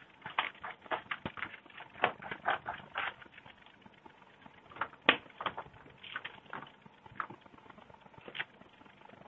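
Scissors snipping through a paper pattern sheet, with the paper rustling as it is turned. The short, sharp snips come in quick runs for the first three seconds, then more spaced out.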